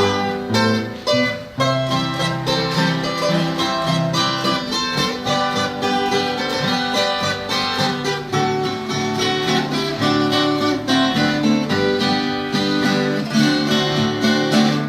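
Instrumental break of a sertanejo-caipira song with no singing: plucked acoustic string instruments play the melody over a steady strummed accompaniment.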